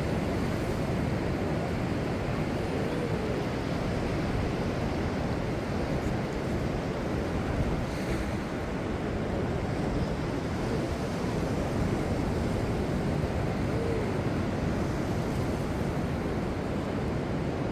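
Ocean surf washing steadily onto a flat sandy beach, with wind buffeting the microphone.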